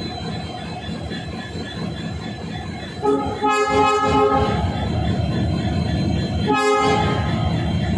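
Diesel locomotive running steadily, with two short train-horn blasts: one about three seconds in and a shorter one near seven seconds. The engine sound gets louder after the first blast.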